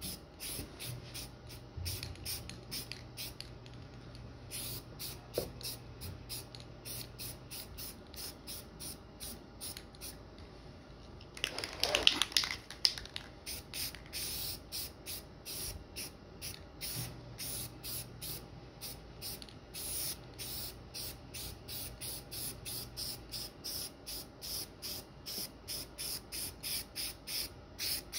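Aerosol spray paint can hissing in many short, quick bursts, about two or three a second, with one louder, longer rush of noise around the middle.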